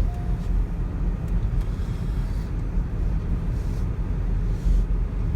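Steady road and engine rumble inside a moving minivan's cabin.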